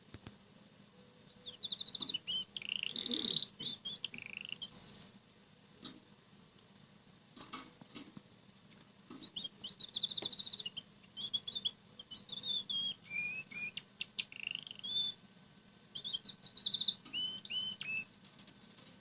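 Red canary singing quietly in short phrases of trills and whistled notes, with pauses between the phrases.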